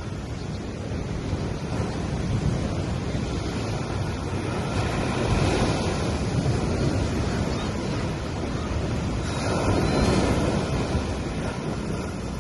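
Gentle sea waves washing onto a sandy beach in a steady hiss of surf, with two waves breaking a little louder, about five and ten seconds in.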